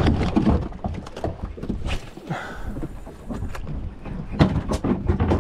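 Choppy water slapping against a small boat's hull, with wind on the microphone and irregular knocks throughout.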